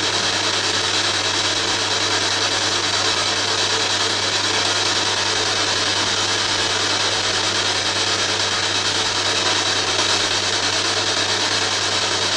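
Ghost box (spirit box) radio giving a steady, loud hiss of static with a constant low hum underneath.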